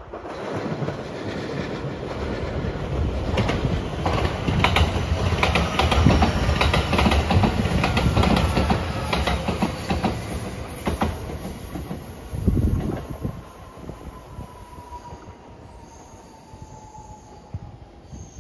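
JR West 227 series "Urara" electric train passing. Its wheels click over the rail joints, loudest in the middle, and the sound fades in the last few seconds as it draws away. A thin whine slowly falls in pitch as the train moves off.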